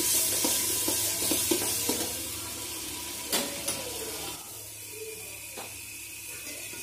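Masala paste frying in oil in a metal pot, sizzling while a spoon stirs and scrapes it with small knocks against the pot and one sharp tap about three seconds in. The sizzle thins out in the second half. The spices are being fried until the oil separates.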